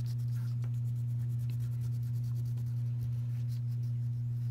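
A steady low electrical hum throughout, with faint scratching of a wax crayon being rubbed back and forth on paper.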